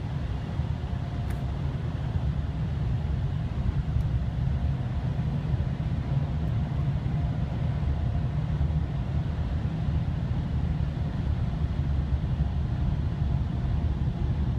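Steady low rumble heard from inside a car's cabin, with no breaks or changes.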